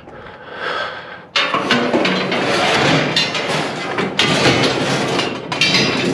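Loud knocking and scraping of hard objects being handled and moved, starting about a second in and running on as a dense clatter.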